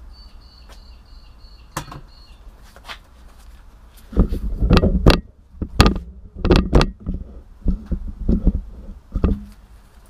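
A run of irregular knocks and clunks, about a dozen, beginning about four seconds in, over a low steady hum.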